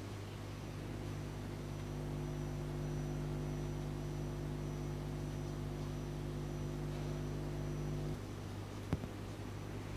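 Steady low electrical mains hum. Part of the hum cuts off abruptly about eight seconds in, and a single sharp click follows about a second later.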